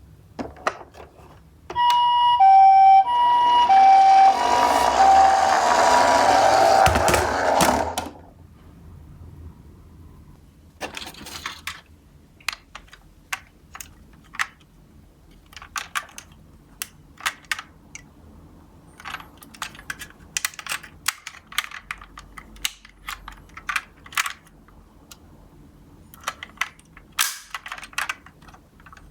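A two-tone Japanese 'pee-po' ambulance siren alternating high and low for about six seconds, over a swelling rolling rattle of die-cast toy cars running down a slope that stops sharply about eight seconds in. After that come scattered light clicks and knocks of the toy cars.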